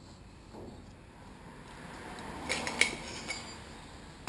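Light metallic clinking and rustling as metal tools and fork parts are handled, with a few sharp clinks about two and a half to three seconds in.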